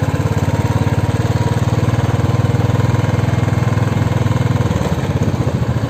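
A small engine running steadily with a fast, even pulsing beat, easing a little near the end.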